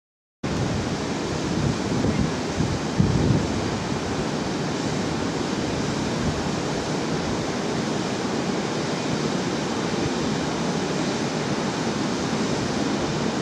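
Steady rushing wind noise on the microphone, slightly gustier a couple of seconds in.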